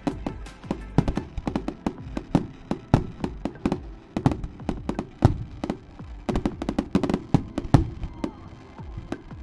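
Fireworks display: a rapid, irregular barrage of sharp bangs and crackles, several a second, with the loudest bangs in the later part.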